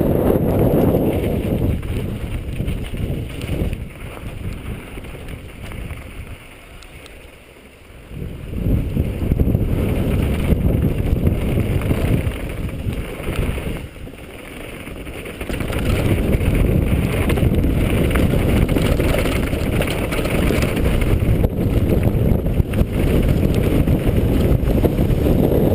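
Strong wind buffeting the microphone during a downhill mountain-bike run, a dense low rumble that drops away twice for a second or two, once about a quarter of the way in and again about halfway.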